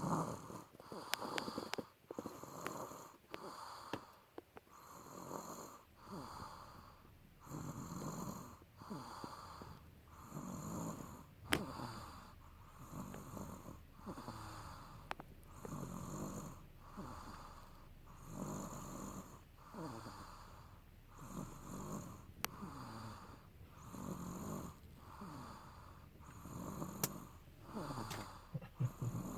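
Steady, rhythmic snoring of a sleeper, a rasping snore about once a second, going on without a break.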